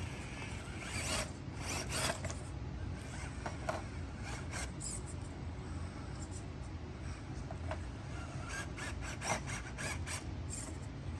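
Traxxas TRX-4M micro RC crawler climbing over rock: rasping, scraping sounds of its tyres and chassis grinding on stone come in clusters, about a second or two in, around four to five seconds, and again near the end, over a steady low hum.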